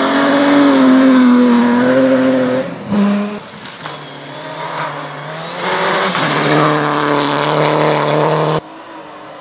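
Two rally cars passing flat out on a gravel stage. The first car's engine is held at high revs and falls away about three seconds in. A second car then approaches and runs past close, growing louder until the sound cuts off suddenly near the end.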